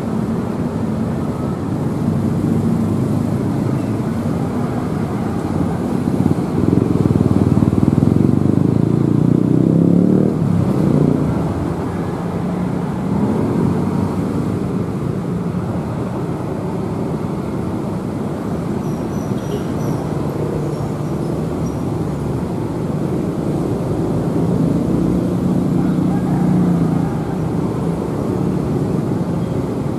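Steady engine rumble and road traffic noise, with motorcycles running, swelling from about six to eleven seconds in.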